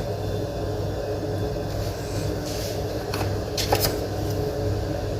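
A few light clicks of a serving utensil against the metal baking tray as a piece of kunafa is lifted out, over a steady low hum.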